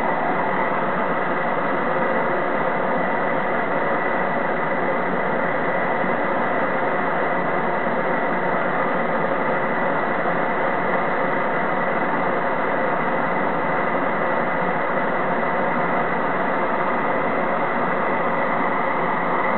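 Two swirl-flame propane torches burning with a steady, even rushing hiss as they heat rifle brass cases for annealing.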